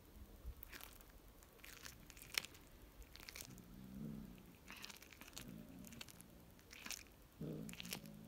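Tabby cat biting and chewing a pigeon's carcass: quiet, irregular crunches and sharp snaps of feather and bone, the sharpest about two and a half seconds in. Three short low pitched sounds come in between, near four, five and a half and eight seconds in.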